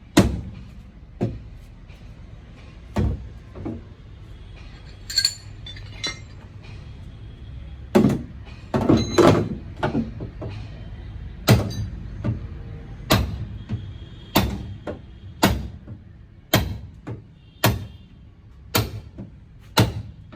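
Hammer blows on the sheet metal of a dented car boot, single sharp knocks a second or two apart, settling into about one a second in the second half, with a few brief metallic clinks.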